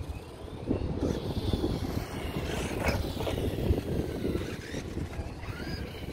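Wind noise on the microphone, with the faint whine of a distant brushless electric RC car motor rising and falling in pitch as it drives.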